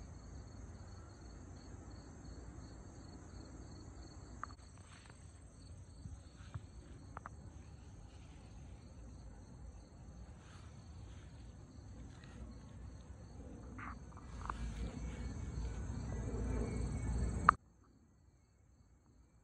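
Steady, high-pitched daytime insect chorus, with a few light clicks. A low rumble builds over the last few seconds before the sound cuts off abruptly, about three-quarters of the way through.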